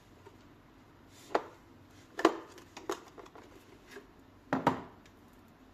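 About five sharp plastic clicks and knocks from handling the underside of a Xiaomi S10+ robot vacuum around its drive-wheel module during disassembly, the loudest a quick double knock near the end.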